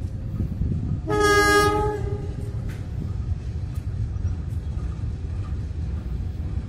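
Diesel-electric locomotive horn sounding one blast of about a second, a chord of several tones, about a second in. A steady low rumble with wind noise runs underneath.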